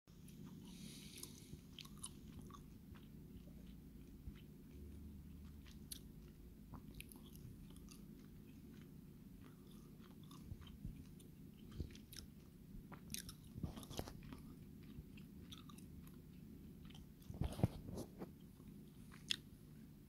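Faint handling noise of a vintage Ulster Boy Scout pocket knife: small clicks and rubbing as fingers turn it on a cloth, with a cluster of louder clicks near the end as a blade is pulled open.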